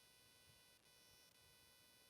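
Near silence: faint steady room tone with a thin electronic hum.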